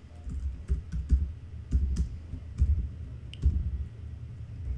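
Typing on a computer keyboard: irregular keystrokes, a couple a second, each a sharp click with a dull thud beneath it.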